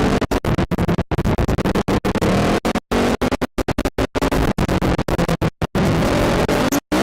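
ATV engine noise chopped by many sudden dropouts, cutting out and back in several times a second, with a longer gap near the end.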